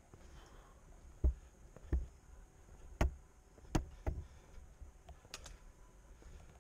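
Footsteps going down concrete steps: five thudding footfalls, one every second or less, in the first four seconds or so.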